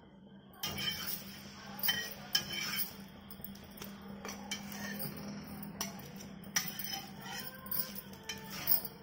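A flat spatula scraping and clinking against a cast iron dosa tawa as small dosas are lifted off it, with several sharp clinks spread unevenly through.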